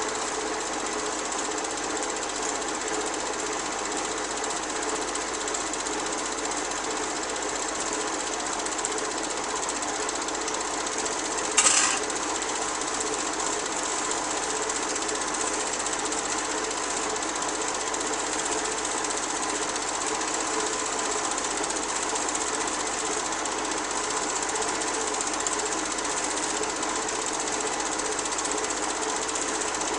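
Film projector running with a steady, rapid mechanical clatter, and one sharp click about twelve seconds in.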